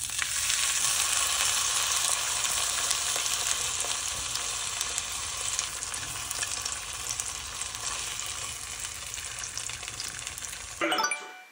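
A kimchi pancake and breaded chicken nuggets sizzling in hot oil in a frying pan, a steady hiss that cuts off suddenly near the end.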